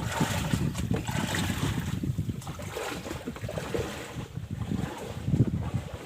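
Small engine running on massage oil as fuel, a dense, uneven low chugging.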